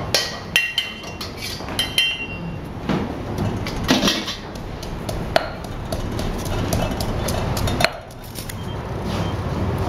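A metal spatula scraping and knocking against a steel wok, with a short metallic ring, in the first two seconds. Then a stone pestle pounds in a heavy granite mortar, giving a few irregular dull knocks.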